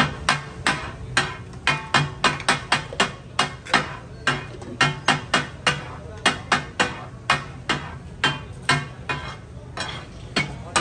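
Steel katakat blades striking a flat iron tawa, chopping and tossing food in quick, uneven strokes, about two to three clangs a second, each with a short metallic ring.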